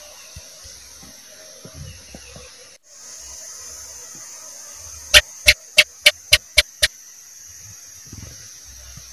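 House gecko (cicak) calling: a run of seven sharp chirps, about four a second, starting about five seconds in and fading a little toward the end, over a steady background hiss.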